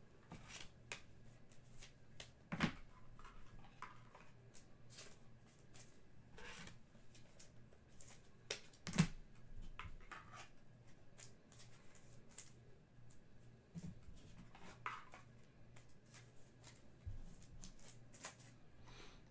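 Faint handling of trading cards and their packaging: scattered light clicks and soft rustles. There is a sharper knock near three seconds in and the loudest one about nine seconds in.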